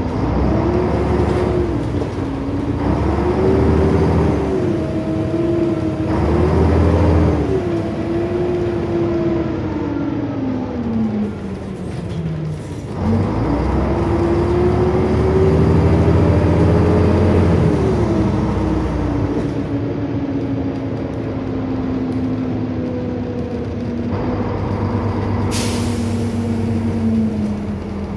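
Volvo Olympian double-decker bus's diesel engine heard from the top deck, its note rising and falling through gear changes, dropping low about twelve seconds in as the bus slows and climbing again as it pulls away, then running more steadily. A short, sharp hiss of air from the air brakes near the end.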